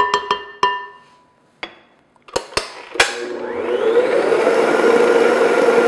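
A few ringing taps and clicks as batter is scraped off the beater over the glass bowl and the mixer head is set back in place. About three seconds in, the electric stand mixer's motor starts, rises quickly in pitch, and runs steadily, beating cake batter.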